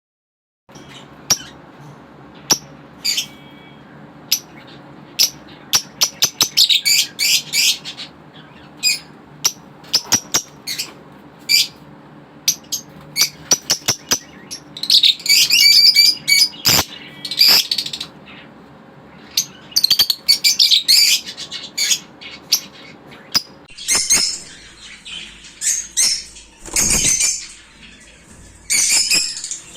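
Small pet parrots chirping and squawking: many short, sharp high-pitched calls coming in quick clusters. A steady low hum runs underneath and stops about 24 seconds in.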